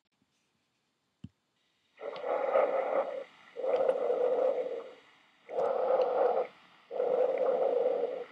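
Recorded clinical breath sounds: starting about two seconds in, four breathy sounds about a second long each, alternating inhalation and exhalation with short gaps between, after a single faint click about a second in.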